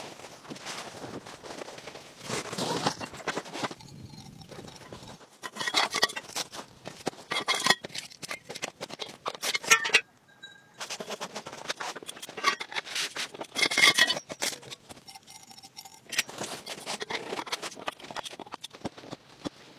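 Camping gear being handled and put together: tent fabric rustling and scraping, with many sharp clicks and knocks of frame parts, in uneven bursts. The sound breaks off briefly about halfway through.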